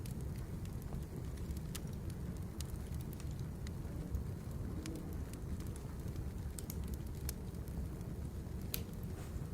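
Birch firewood burning, with scattered sharp crackles and pops over a low steady rumble.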